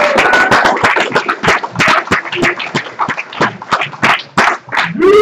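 Audience applauding: many people clapping in a dense, irregular patter, with a short whoop or call from the crowd near the start and again near the end.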